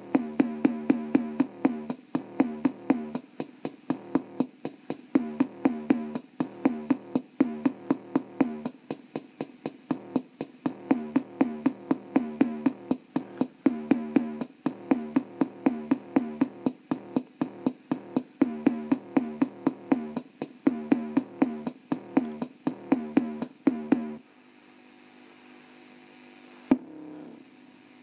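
Electronic bass-test track with a fast drum-machine beat, played through the built-in speaker of an Orion VHS/CRT TV combo. It sounds thin in the deep bass. The music cuts off about 24 seconds in, leaving a faint hum.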